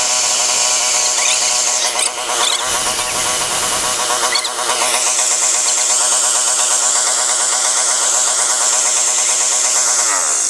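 Fujihama 3600-watt gasoline inverter generator running with a steady, slightly wavering engine note; near the end its pitch slides down and the sound drops away.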